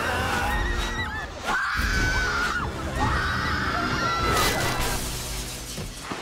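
Two long, high screams, each held for about a second, over a low rumble and background music, with a crash about four seconds in.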